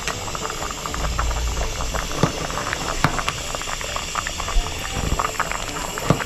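Food cooking on the stove, a steady dense sizzling crackle with a few sharper pops.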